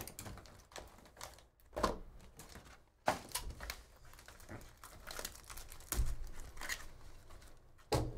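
Cardboard Topps Museum Collection mini boxes handled and set down on a table, with several knocks, and clear plastic wrapping crinkling as one box is opened.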